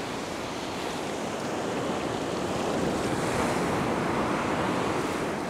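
Small ocean waves breaking on a sandy beach; the rush of surf swells to its loudest a few seconds in.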